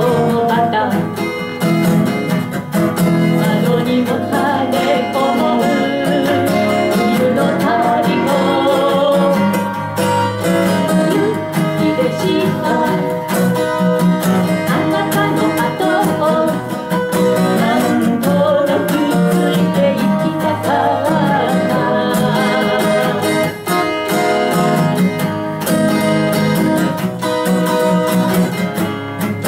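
Two acoustic guitars playing a folk song together, with a singing voice over them.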